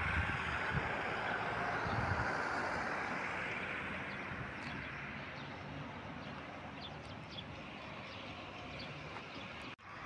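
Steady outdoor background noise that slowly fades, with a few faint, short, high chirps about halfway through.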